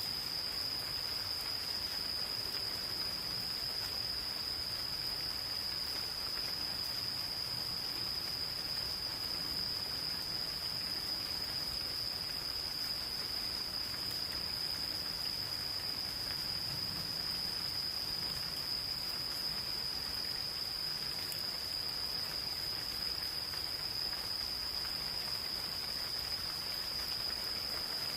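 Insects calling in one unbroken, steady high-pitched trill over the soft, even hiss of gentle rain falling in a forest.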